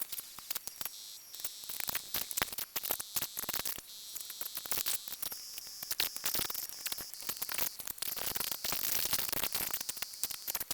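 Faint high-pitched electronic whine and hiss from a desktop PC just powered on from a test power supply, with many small scattered clicks.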